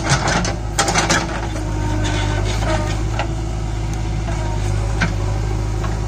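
JCB 3DX Super backhoe loader's diesel engine running steadily under load while the hydraulic backhoe arm works the bucket through soil. A cluster of sharp knocks comes in the first second or so, with a few scattered single knocks after.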